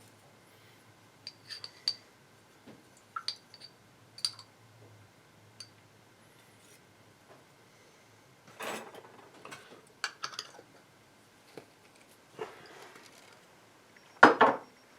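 Small metal tools and pieces clinking and tapping on a jeweller's workbench, with a few light ringing clinks and short handling rustles, and one loud sharp knock near the end.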